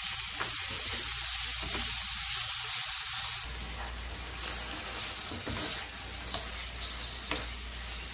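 Minced mutton (keema) sizzling as it fries in hot oil with onions and spices, stirred with a spatula, with a few short scrapes of the spatula against the pan. The sizzle drops a little about three and a half seconds in.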